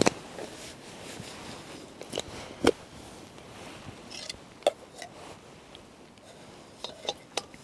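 Small gas lantern and gas canister being handled: scattered light clicks and knocks, a second or two apart, as the lantern is fitted and screwed onto the canister.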